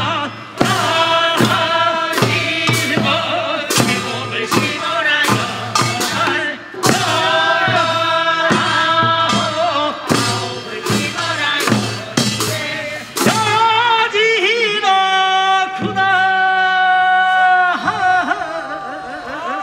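Korean farmers' rice-transplanting work song (nongyo), sung with drum beats. Near the two-thirds mark the drumming stops and the singers hold long notes.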